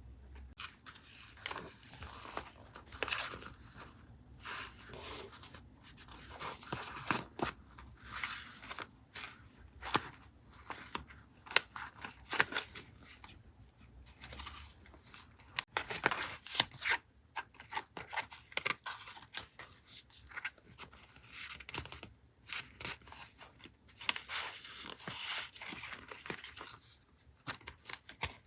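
Close-up paper-crafting sounds: sheets of paper handled, cut and torn in irregular sharp snips, rips and crackles.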